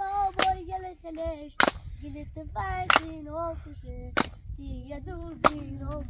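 A high voice singing a chant, with five sharp handclaps keeping time, about one every second and a quarter.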